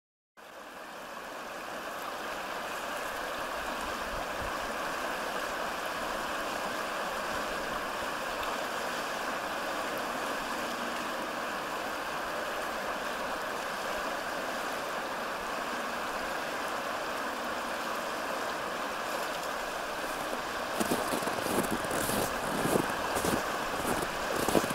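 Steady rushing of a flowing stream. About four seconds before the end, footsteps start in an even walking rhythm of about two steps a second on top of it.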